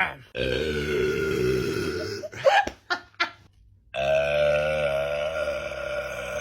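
A man belching: one long drawn-out burp lasting about two seconds, a few short sounds, then a pause and another long burp starting about four seconds in.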